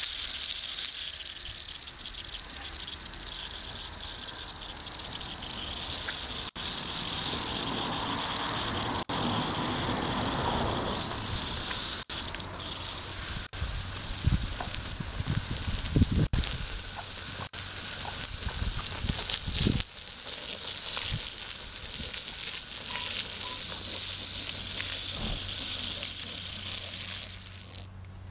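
Water rushing from a garden hose, a steady hiss that cuts off sharply near the end, with a few dull low thumps about halfway through.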